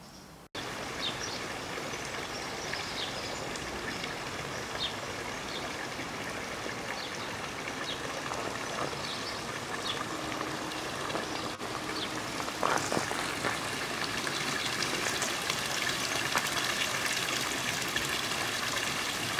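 A stream running steadily, an even rush of water with a few short high chirps over it; the rush grows louder about twelve seconds in.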